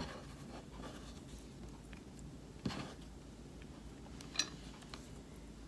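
Quiet kitchen handling noise as ingredients go into a pan: a couple of light knocks and a short clink of a utensil, with a faint low hum underneath.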